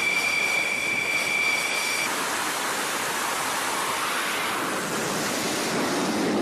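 Dassault Rafale M's twin M88 jet engines at full power on the carrier catapult: a steady high-pitched whine that gives way about two seconds in to a loud rushing jet noise as the fighter is catapulted down the deck.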